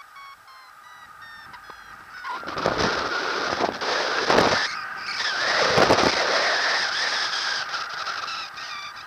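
Paragliding variometer beeping in quick short tones, then a loud rush of air over the microphone from about two seconds in that swells and dips while the wing banks into a turn, before the beeping comes back through near the end.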